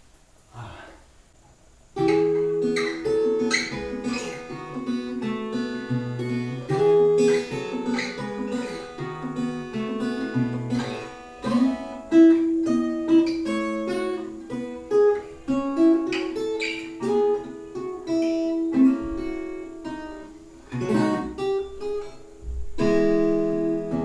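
Washburn WP26SENS parlor acoustic guitar played solo, a run of plucked notes and strummed chords that starts about two seconds in, with a brief pause shortly before a strong chord near the end.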